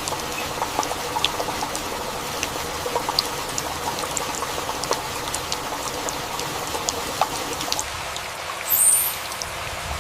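Heavy rain falling, a steady hiss with many separate close drips and trickling water. Near the end comes a short, very high chirp, the loudest moment.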